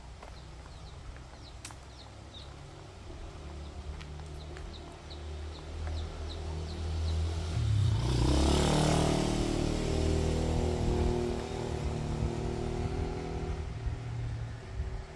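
A motor vehicle's engine grows louder over the first half, passes close about eight to nine seconds in, then keeps running steadily. Faint high chirps repeat in the first half.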